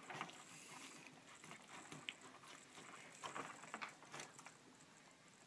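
Faint clicks and scrapes of a knife and metal carving fork cutting into a whole smoked chicken, a few soft ticks spread through otherwise near silence.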